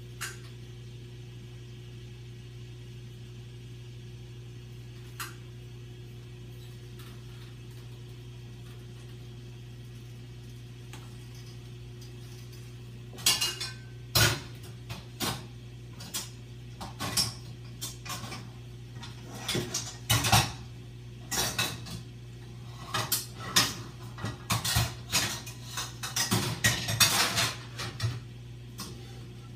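Pots, dishes and cutlery clattering: about halfway through a long run of sharp knocks and clinks begins and goes on until near the end, over a steady low hum.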